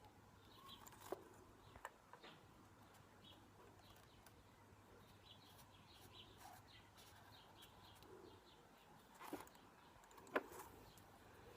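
Near silence with faint distant bird chirps and a few light taps, the loudest about ten seconds in.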